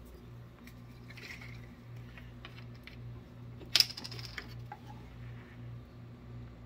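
Small clicks from handling a glass vinegar bottle at a kitchen counter as its cap comes off, with one sharp clack about four seconds in as the small plastic cap is set down on the counter. A faint, steadily pulsing low hum runs underneath.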